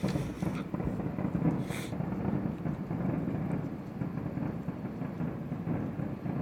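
Fireworks going off, with a continuous low rolling rumble of booms and their echoes, and brief crackling bursts at the start and again just before two seconds in.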